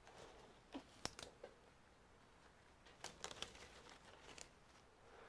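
Faint crinkling and a few light clicks as a pair of latex gloves is picked up and handled, in two short clusters about a second in and about three seconds in.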